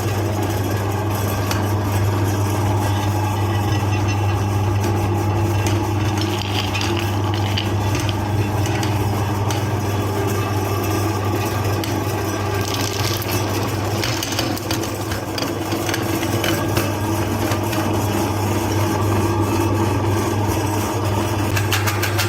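Electric meat grinder running with a steady motor hum, with scattered clicks and crunches as chocolate candy goes through it.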